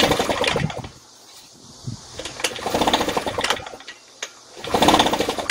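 Recoil starter cord of a Shindaiwa EB803 backpack blower's two-stroke engine pulled three times, about a second each, each pull a fast rattling whirr as the engine spins over without firing. It is cranked for an ignition coil and spark plug check on an engine that won't start.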